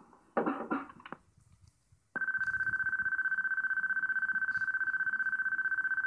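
A long electronic telephone-type beep from an old answering-machine cassette: one steady high tone with a fast flutter, starting about two seconds in and lasting about four and a half seconds. A few short noises come in the first second before it.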